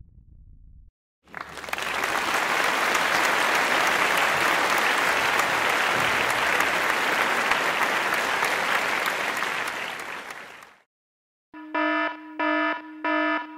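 Recorded applause that swells in, holds for about nine seconds and fades out. After a short gap, a buzzy electronic alarm starts beeping, about two beeps a second.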